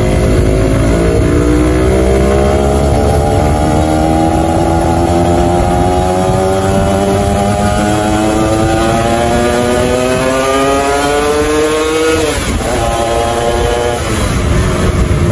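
Yamaha motorcycle with an aftermarket HTX exhaust, ridden on the road. The engine note climbs slowly in pitch as it pulls for about twelve seconds, then drops sharply and changes again a couple of seconds later, over a low rumble of wind and road noise.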